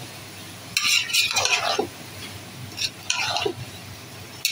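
Metal spatula stirring and scraping minced mutton and spices around the inside of a pressure cooker pot, in a few separate scraping strokes about two seconds apart.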